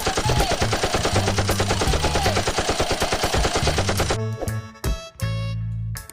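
Rapid, fast machine-gun fire from a toy gun's electronic firing sound, with a wavering tone in it, over background music. The firing stops about four seconds in, leaving only the music.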